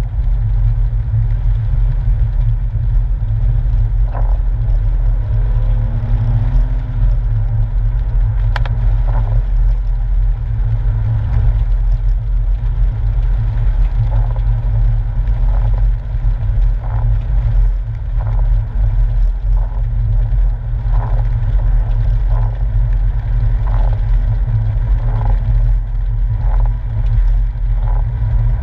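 Porsche 997's rear-mounted flat-six engine and tyre noise heard from inside the cabin while driving on a wet road: a steady low rumble. From about halfway on, a faint soft stroke repeats about every second and a half, the windscreen wipers sweeping.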